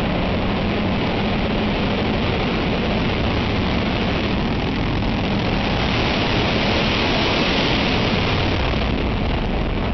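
Drag-racing pickup truck's engine launching and running at full throttle, heard close as a loud, dense, steady noise.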